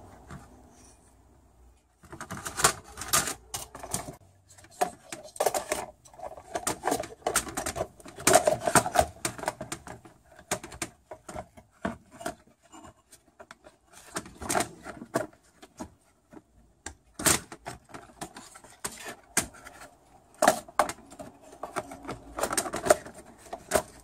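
Hard plastic clicks, knocks and rattles of the Mercedes PSE central-locking pump and its black plastic housing being handled and fitted back together, in irregular runs, starting about two seconds in.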